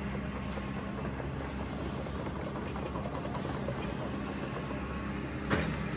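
Heavy demolition machinery running steadily while breaking up a building, with scattered crunching of debris and one sharp, loud crash about five and a half seconds in.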